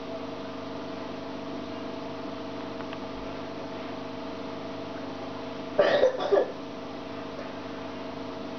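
Steady low hum of aquarium equipment, with a few fixed tones. A brief, loud, rough noise breaks in about six seconds in.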